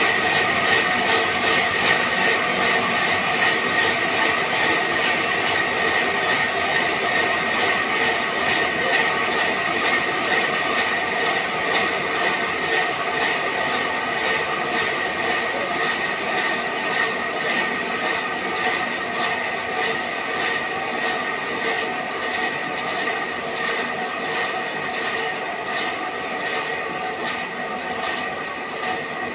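Sawmill band saw machine running steadily, a continuous mechanical noise with a high steady whine and a fast regular pulse, slowly getting quieter.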